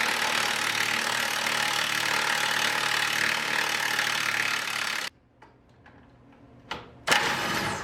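Impact wrench running hard on a suspension bolt for about five seconds, stopping abruptly, then a second short burst near the end.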